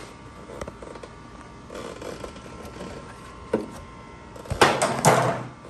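Plastic clicks and clatter from an HP DesignJet T120 large-format printer being handled, with scattered clicks and a louder burst of clattering near the end. A faint steady tone runs underneath.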